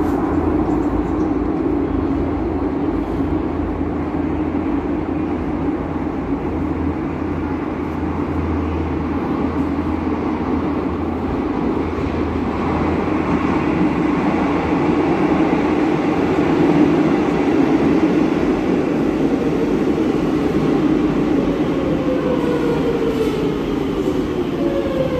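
Madrid Metro train approaching through the tunnel and pulling into the station: a steady rumble that grows louder past the middle. Near the end the motors give a falling whine as it brakes to a stop.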